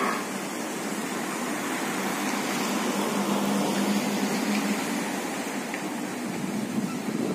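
Steady wind noise buffeting a phone's microphone, with a low hum that comes up about two seconds in and fades about three seconds later.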